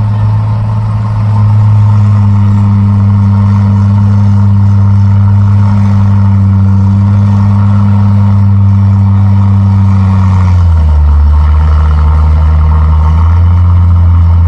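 Truck engine running close by at a steady speed, its pitch dropping about ten seconds in and rising a little near the end.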